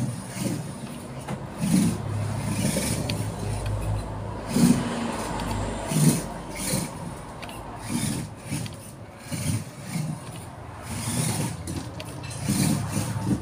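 Stock WPL D12 RC truck electric motor and gearbox driving a miniature truck chassis across the floor, rising and falling in short bursts with throttle changes, with clatter from the chassis and tyres.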